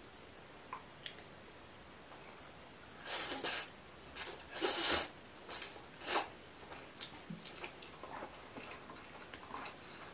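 Spicy cup noodles being slurped with chopsticks: three or four short, loud slurps between about three and six seconds in, followed by softer small mouth clicks.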